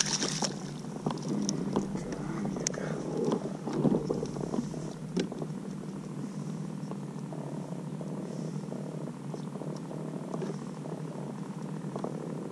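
A splash as a fish is grabbed out of the water by hand, then a few light knocks of handling on the kayak over a steady low purring hum.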